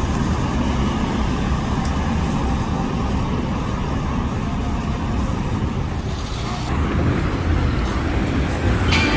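Road traffic noise: a steady low rumble of passing cars, which changes character about two-thirds of the way through.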